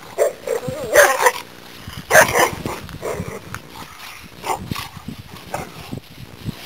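Two kuvasz dogs playing rough, yipping and barking at each other, with two loud harsh barks about one and two seconds in, then shorter scattered noises.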